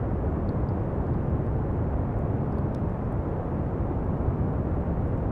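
Steady pink noise: an even, unchanging rushing hiss weighted toward the low end.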